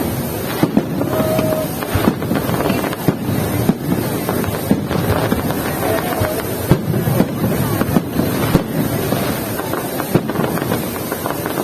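Fireworks display going off, with sharp bangs every second or two and constant crackling over the chatter of a crowd.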